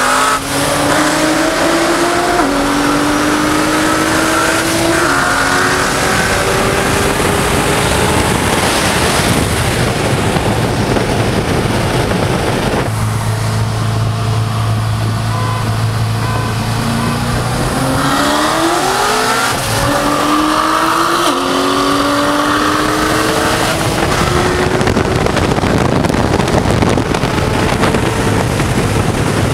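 C6 Corvette Z06's 7.0-litre V8 heard from inside the cabin, accelerating hard at wide-open throttle. The pitch climbs and drops back at each upshift, twice, with a spell of steady cruising between the pulls. Loud wind and road noise run underneath throughout.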